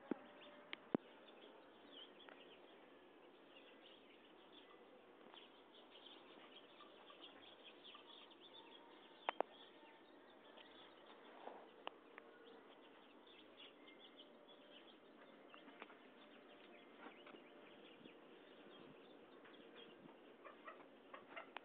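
Near silence: a faint steady hiss with a few sharp clicks, two of them close together about nine seconds in.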